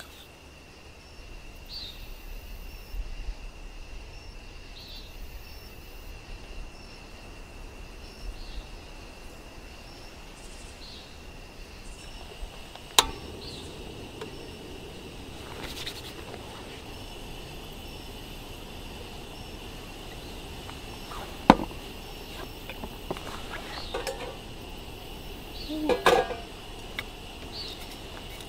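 Steady high insect drone with a short chirp repeating about once a second, under a few sharp knocks of camp cookware.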